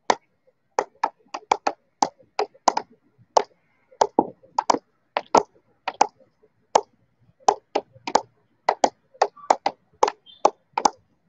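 A field hockey ball bounced up off the flat face of a hockey stick again and again, in a juggling-control drill. Sharp clacks come about three a second, unevenly spaced.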